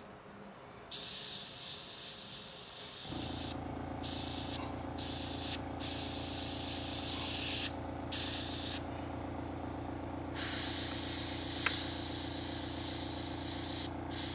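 Gravity-feed airbrush hissing as it sprays paint, in bursts of one to four seconds broken by short pauses as the trigger is let off. About three seconds in, a steady low hum starts underneath and keeps on.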